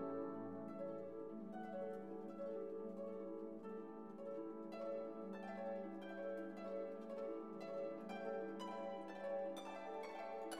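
Background music: soft plucked harp-like notes over sustained string tones.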